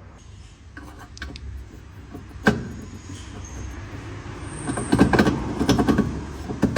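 Metal tools and parts knocking and clinking during work on a car's rear wheel hub: one sharp knock about two and a half seconds in, then a cluster of knocks near the end, over a low steady hum.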